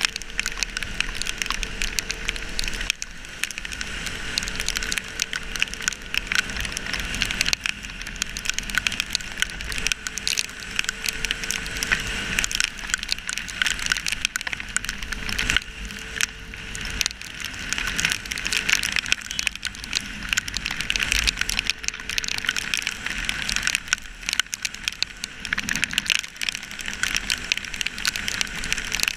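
Raindrops and wind pattering on a GoPro Hero3 housing on a KTM Duke 200 ridden through heavy rain: a steady, dense crackle. The bike's single-cylinder engine runs faintly underneath.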